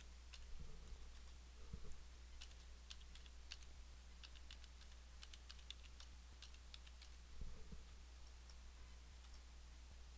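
Faint, irregular keystrokes on a computer keyboard as a web address is typed, over a steady low hum.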